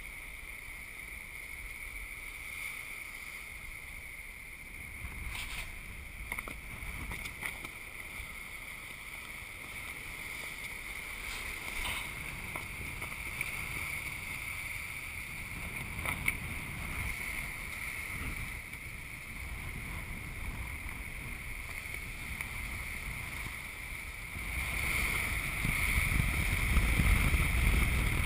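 Sailboat running fast under sail: water rushing along the hull with wind and a steady high whine, broken by a few sharp knocks. The rush gets louder near the end.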